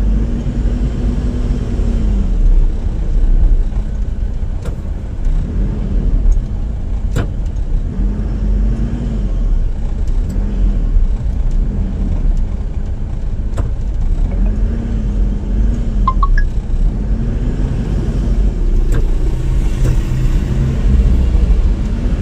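Car heard from inside the cabin on a road drive: a steady low road and engine rumble, with the engine note repeatedly rising and falling as it pulls and eases off.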